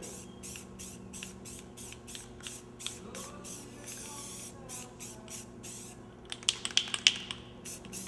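Rust-Oleum 2X Painter's Touch Marigold yellow spray can sprayed in short hissing bursts, about two or three a second. A little after six seconds in, a cluster of sharper clicks.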